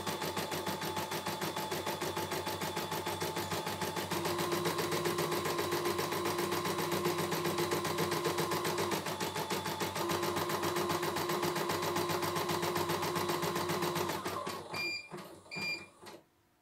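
CNY E900 computerised embroidery machine stitching fast and evenly, its motor tone shifting pitch a few times, then slowing and stopping about 14 seconds in, followed by two short electronic beeps: the machine halting at the end of the first thread colour.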